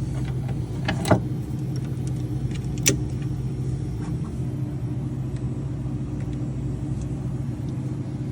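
Steady low mechanical hum of a Bambu A1 3D printer's fans running, with two sharp clicks about one and three seconds in.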